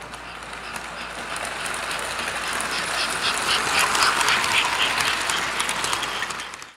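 American Flyer S-gauge model freight train rolling along the track, its wheels clattering with many small clicks, growing louder as the cars pass close by, then cutting off suddenly near the end.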